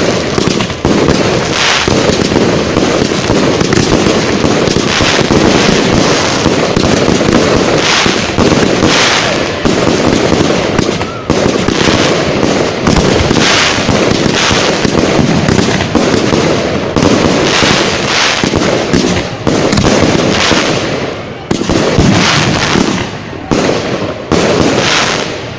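Fireworks display: a dense, unbroken barrage of bangs and crackle from firework volleys, the reports following one another with no pause.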